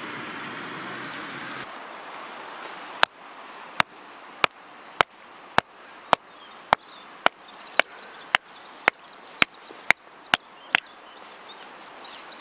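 A hand axe chopping kindling sticks against a rock: about fifteen sharp, even blows, roughly two a second, starting about three seconds in and stopping shortly before the end.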